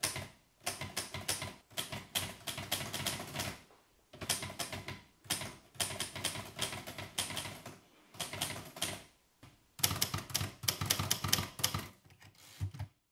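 Rapid typing, many keystrokes a second in runs of one to two seconds with short pauses between them, stopping suddenly near the end.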